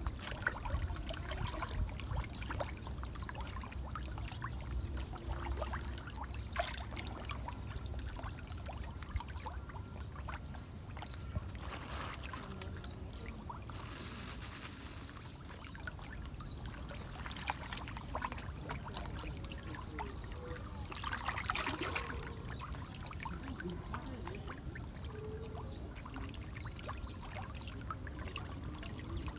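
A dense school of fish churning at the water surface: a continuous patter of many small, irregular splashes and slaps, swelling briefly about three quarters of the way through.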